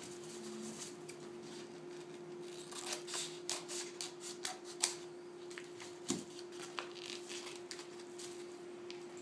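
Faint rustling and crinkling of a printed canvas being pinched and folded at a corner of a wooden stretcher frame, with a few light knocks, over a steady faint hum.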